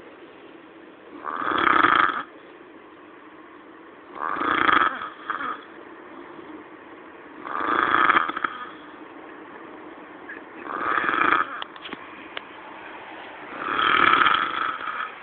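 A sleeping man snoring heavily: five loud snores about every three seconds, each lasting around a second.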